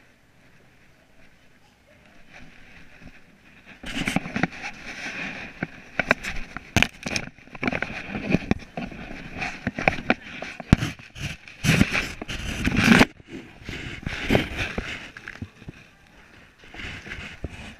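Handling noise from a chest-mounted action camera: rubbing, scraping and a dense run of knocks as it is jostled against clothing and a table edge, loudest from about four seconds in until about thirteen seconds in, over the steady hum of a busy hall.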